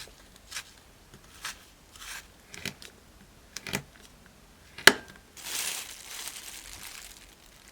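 Close-up crinkling and crunching handling sounds, a run of short strokes with a sharp click about five seconds in, then a longer rustle lasting about two seconds.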